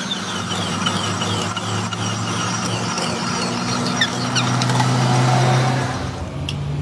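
Metal lathe running and cutting a metal bushing: a steady motor hum under a cutting hiss, with a rapid high chirping that repeats about six times a second through the first half. The hum swells louder just before the cutting noise drops away about six seconds in.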